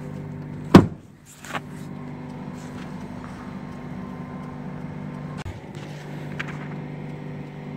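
Heavy truck's diesel engine idling steadily, heard from inside the cab. A loud sharp bang comes about a second in, followed by a smaller knock and a few faint clicks later.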